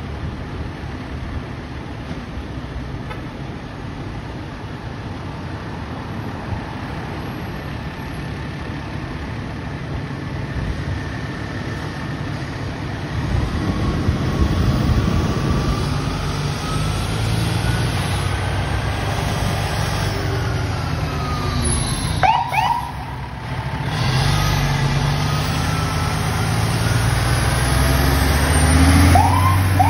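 An aerial ladder fire truck's heavy diesel engine rumbles, growing louder as the truck pulls out of the station and passes close by. Its siren wails with slow rising and falling pitch, gives a couple of short sharp yelps partway through, and winds up steeply near the end.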